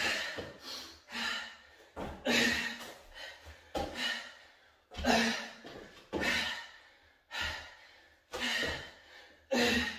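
A man's heavy, hard breathing from exertion during a dumbbell workout: forceful breaths about once a second, each starting sharply and fading.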